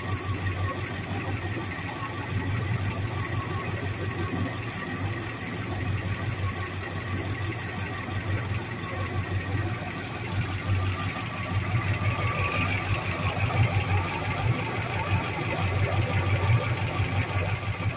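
A freshly rebuilt carburetted marine V8 engine running steadily on a test stand: a trial run to check the rebuild.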